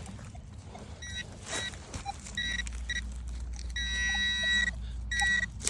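Minelab metal detector beeping on a target: several short high beeps, then one long beep held for over a second, then another short one. The signal is the response to a large copper coin buried just below.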